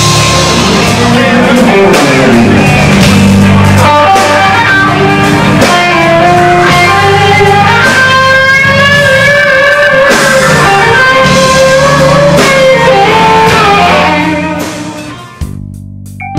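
Live electric blues band: a lead electric guitar plays a solo of bent, sustained notes over bass guitar and drums. Near the end the band fades out and a different organ tune starts.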